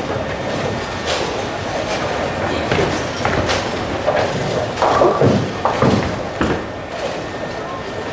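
Ten-pin bowling alley din: bowling balls rolling down the lanes and pins clattering. A run of loud knocks comes about five to six and a half seconds in.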